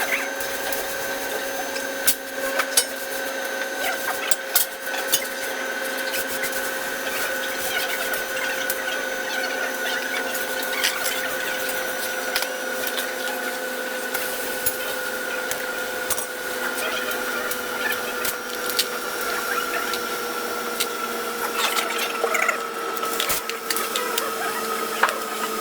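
A workshop machine running steadily with a whine of two tones that drift slowly lower, over a rasping, crackling noise with scattered sharp clicks.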